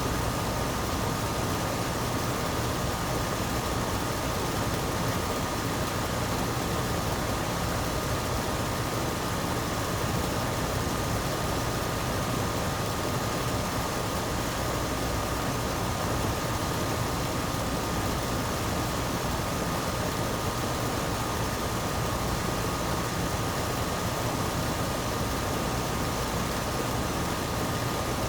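Gibson air conditioner running steadily: an even rush of fan and compressor noise with a constant thin whine held over it.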